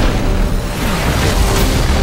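Film-trailer soundtrack: dramatic score with a heavy boom right at the start, under dense crashing and explosion sound effects of a giant machine smashing through wreckage.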